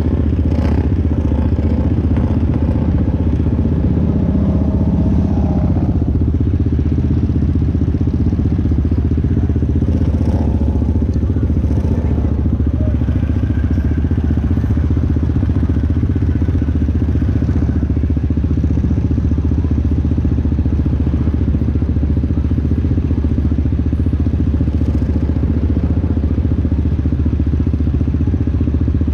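ATV engine running steadily and loudly, with a low, even drone throughout.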